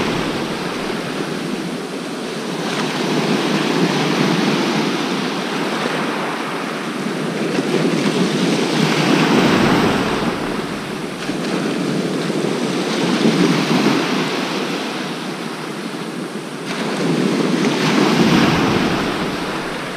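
Sea surf breaking on the beach, the wash swelling and easing every four to five seconds.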